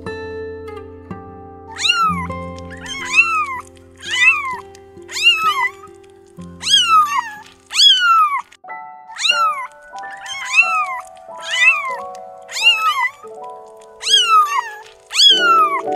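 A cat meowing over and over, about a dozen calls roughly a second apart, each rising then falling in pitch, starting about two seconds in. Background music with held notes plays underneath.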